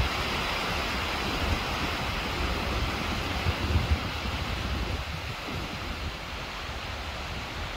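Tall waterfall making a steady rushing noise of falling water, with wind buffeting the microphone in irregular low rumbles. It gets slightly quieter about five seconds in.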